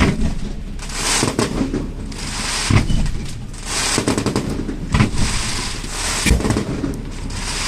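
Fireworks going off: a string of sharp bangs at irregular intervals, between stretches of hissing crackle.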